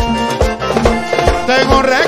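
Vallenato band playing an instrumental passage: a diatonic button accordion leads over a steady low beat about twice a second.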